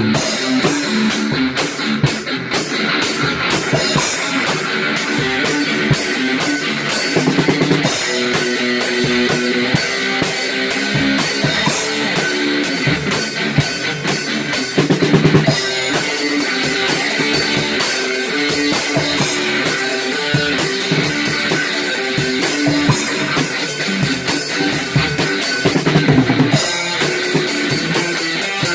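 Rock music with guitar and a full drum kit playing steadily.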